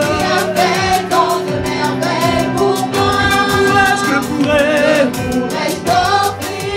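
Live gospel praise music: a male lead singer and female backing singers sing over a band, with a steady drum beat and bass underneath.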